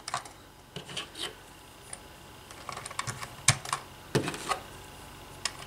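Small plastic pieces of a Shark Bite toy game clicking and knocking as they are handled on a tabletop: scattered light taps, with two louder knocks a little past the middle.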